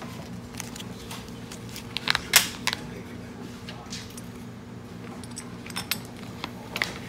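Silver bullion bars clinking and clacking against each other as they are handled in a display tray: scattered sharp metallic clicks, the loudest cluster about two seconds in and a few more near the end, over a steady low electrical hum.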